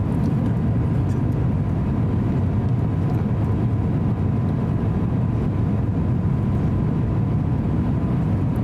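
Steady low rumble inside the cabin of an Airbus A350-900 on final approach: airflow and its Rolls-Royce Trent XWB engines, with a faint steady high tone over it.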